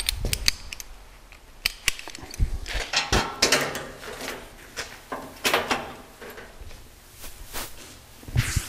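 Irregular clanks, knocks and short scrapes of thin rolled sheet steel and locking clamps being handled, as the tube is lined up and clamped.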